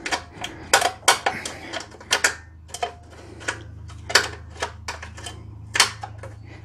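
Lawn mower self-propel cable and its plastic end fitting being pulled up through the mower's metal bracket and housing: a run of irregular sharp clicks and clacks, over a low steady hum.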